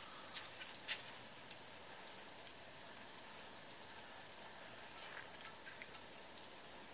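Quiet, steady high-pitched hiss, with a few faint clicks scattered through it.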